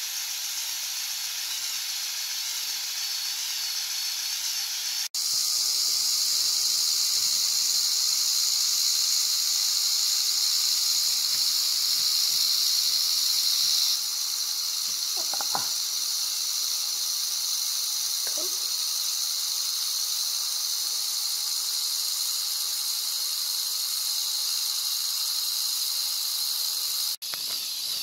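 LEGO Power Functions XL motor driving a Technic gear train: a steady high-pitched whir that drops out for an instant twice, with two faint squeaks partway through.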